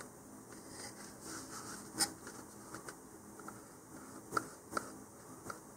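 Faint handling sounds of a cardboard rocket body tube and a small squeeze tube of super glue being worked in the hands: soft rubbing and scratching with a few light clicks, the sharpest about two seconds in.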